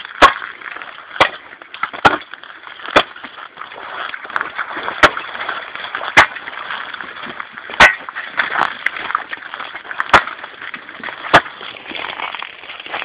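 About nine sharp chopping blows, roughly a second apart at first and then further apart, over a steady background hiss.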